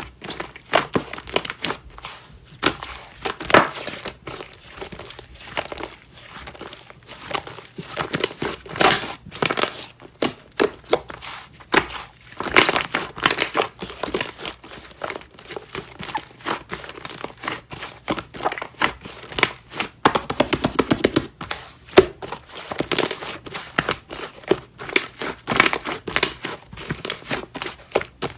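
Slime being played with by hand: a dense, irregular run of sticky crackles, clicking pops and squishes.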